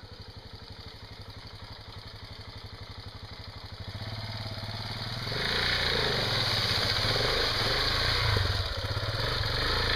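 Single-cylinder KTM enduro motorcycle engine chugging at low revs in even pulses, growing louder as it approaches. About five seconds in it is opened up hard and runs loud and rough as the rear wheel spins and churns through deep mud.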